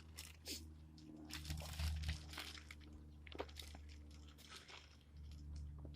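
Plastic hardware bag crinkling and rustling as bolts are sorted out of it, with scattered light clicks, over a low steady hum.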